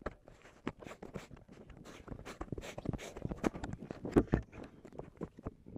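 Irregular knocks and clicks of handling against the side of a fishing boat as a northern pike is lowered over the gunwale for release, with a louder thump about four seconds in.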